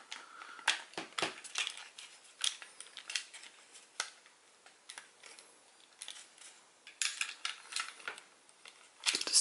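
Plastic parts of a transformable robot toy figure clicking and clacking as hands tuck its panels and tabs into place: scattered light clicks, bunched more closely about seven seconds in.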